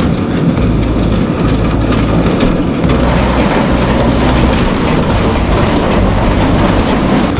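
Tractor and grain cart running at work while unloading wheat: a loud, steady mechanical rumble and clatter of the engine and the unloading auger.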